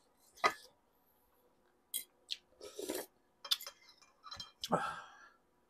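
Metal fork and spoon clinking and scraping against a ceramic plate in short, scattered strokes.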